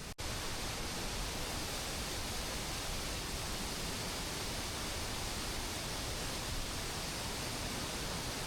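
Steady, even rush of a large waterfall, water pouring out of a limestone wall into a river. The sound drops out for an instant just at the start, then carries on unchanged.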